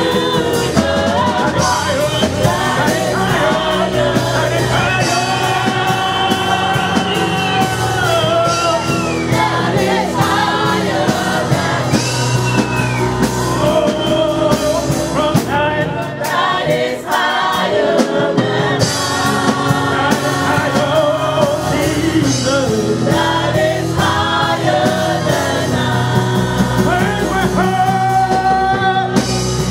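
Live gospel worship singing: a group of women vocalists and a male lead singing into microphones, holding long wavering notes over a band with drums.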